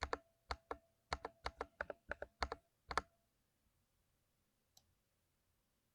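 Keys of a 60% mechanical keyboard being typed: a quick, uneven run of about fifteen sharp key clicks for three seconds, then one faint click about a second and a half later.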